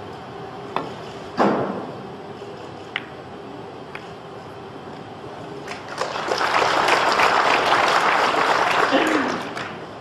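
Pool cue striking the cue ball, followed by clicks and knocks of the pool balls colliding. After that an audience applauds for about three and a half seconds.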